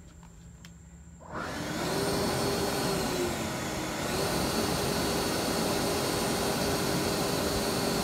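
An electric blower motor switches on about a second in and runs steadily with a whine, its pitch sagging briefly midway and then recovering.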